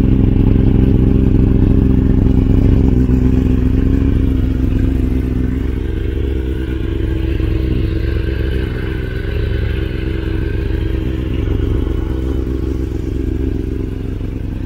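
Kawasaki ZX-10R's inline-four engine idling steadily on a cold start through an Akrapovic stainless steel full exhaust system, getting slightly quieter about five seconds in.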